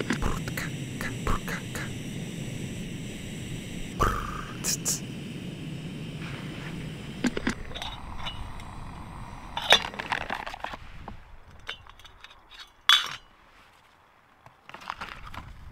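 Metal clinks and light scrapes of a camp kettle's lid and cookware being handled, over a steady low rushing noise that drops away about halfway through. A couple of sharp clinks stand out near the end.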